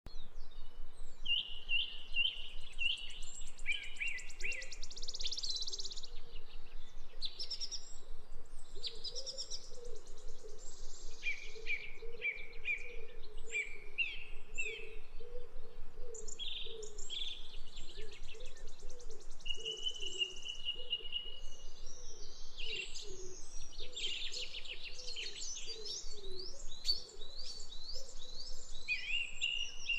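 Several wild birds singing and chirping, with varied short phrases and quick trills following one another, one clear steady whistled note about two-thirds of the way through.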